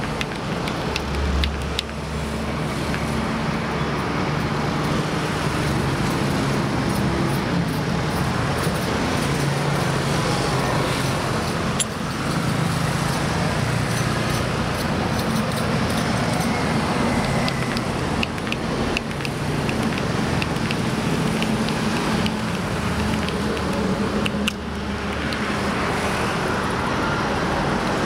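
Steady highway traffic noise, with the engine hum of passing vehicles. A deeper engine hum swells about a second in and again near the end.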